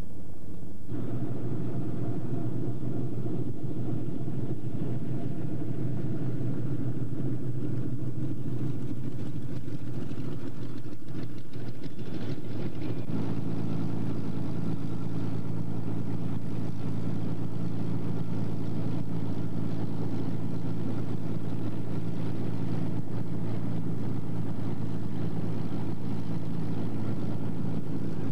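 Propeller aircraft piston engines running at a steady idle: first a radial-engined biplane taxiing, then, after a change about 13 seconds in, another propeller engine idling steadily.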